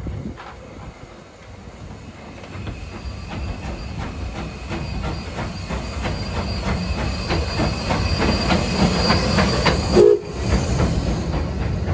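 Lambton Tank no. 29, an 0-6-2 steam tank engine, moving slowly past close by, its sound growing louder as it nears, with a steady run of clanks and wheel clicks a few times a second and steam hissing. A short loud blast about ten seconds in.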